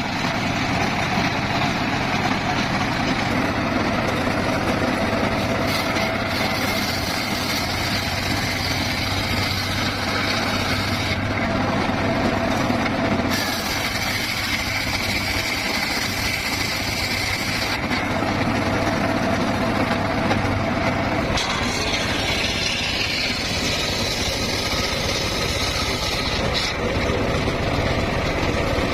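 Home-built circular sawmill running steadily, its engine and machinery keeping an even, constant drone.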